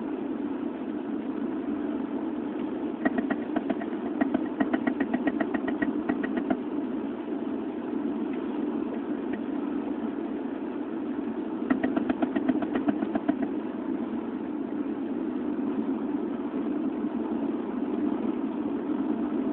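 A car driving, heard from inside the cabin, with two spells of rapid, even knocking at several knocks a second, about three seconds in and again about twelve seconds in. The knock comes when lifting off the throttle and goes with a vibration in the right front wheel; it stops when turning right.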